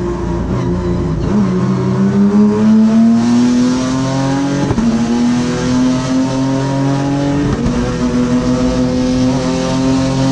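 Sprint Race car's V6 engine heard from inside the cockpit. It eases off briefly, then accelerates, with two quick paddle-shift upshifts about four and a half and seven and a half seconds in.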